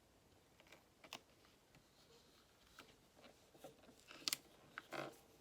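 Faint rustling and small ticks of a thin transparent plastic overlay sheet being handled, with a few sharper clicks about four and five seconds in.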